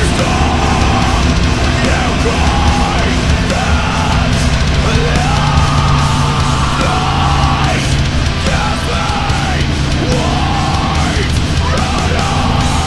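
Loud rock music with a wavering melody line over a dense low end.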